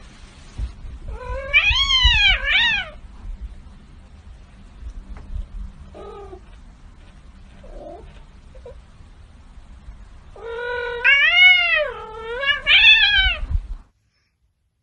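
A domestic cat yowling in long, wavering meows: two loud bouts, about a second in and again from about ten seconds in, with a few short faint calls between. The sound cuts off suddenly near the end.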